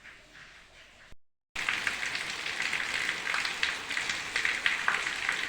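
Dense crackling with many sharp clicks over a hiss, starting suddenly after a brief cut to silence about a second and a half in.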